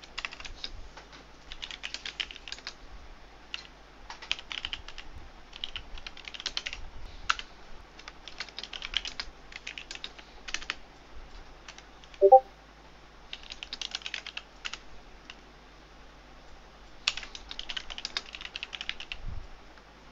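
Computer keyboard typing: bursts of rapid keystrokes with pauses between them. One brief, louder pitched blip about twelve seconds in.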